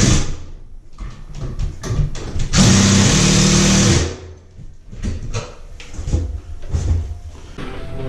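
A power drill running in two short bursts: one cutting off just after the start, another from about two and a half to four seconds in. It is most likely driving screws to fix a round electrical box to a wall stud. After the bursts come scattered small clicks and knocks of handling.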